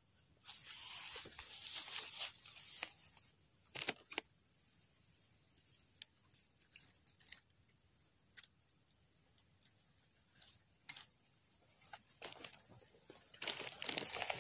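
Rustling and crinkling close to the microphone, as of stiff grass or clothing brushing against it, with a few sharp clicks and taps scattered between. The rustling is heaviest in the first three seconds and again near the end.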